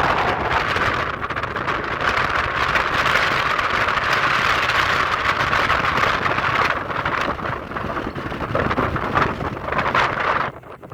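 Wind buffeting the microphone: a loud, gusty rushing that dips briefly near the end.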